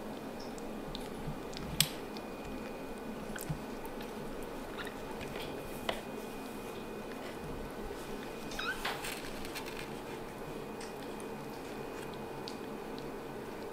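Young kittens shuffling in a cardboard box over a steady room hum, with scattered soft clicks, a sharp click about two seconds in, and a short cat mew about nine seconds in.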